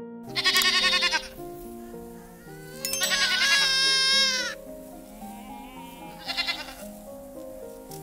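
Young goat kid bleating three times, the middle bleat the longest and loudest, over background music with steady held notes.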